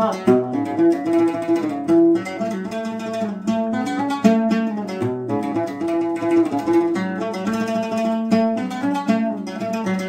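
Instrumental break in a Sudanese Haqiba song: a plucked string instrument plays a quick melodic line of many short notes.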